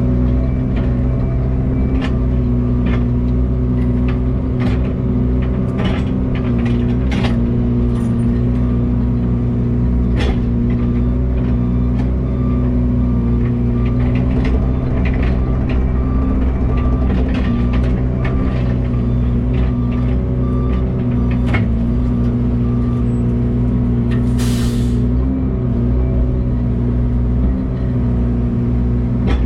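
Heavy truck's diesel engine idling steadily, with scattered clicks and knocks and a short burst of air hiss, like an air-brake release, about 24 seconds in.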